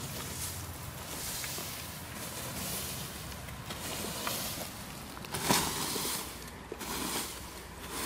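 Wooden hay rake dragged through cut hay and grass, a series of scratchy swishes about once a second, the loudest about five and a half seconds in.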